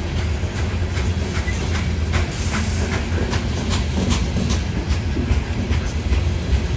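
Freight train of coal cars rolling past: a steady low rumble, with the wheels clicking over rail joints and a brief high hiss about two and a half seconds in.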